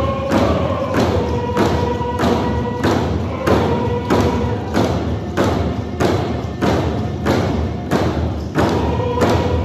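Coast Salish hide hand drums beaten together in a steady beat, about two strokes a second, with a group of singers holding long notes over the drumming: a prayer song.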